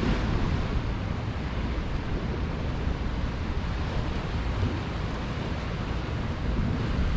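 Sea swell washing against rocks, a steady wash with wind buffeting the microphone.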